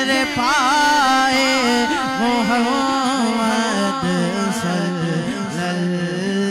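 A man singing a naat, an Urdu devotional poem, into a microphone in long ornamented phrases whose pitch wavers up and down, over a steady low drone that drops in pitch about halfway through.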